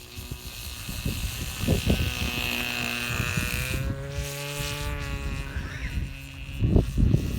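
Small lawnmower engine of a tethered circle-cutting mower running with a steady buzz, its pitch rising and then falling again about halfway through as it speeds up and slows. A rough low rumble runs under it and is loudest near the end.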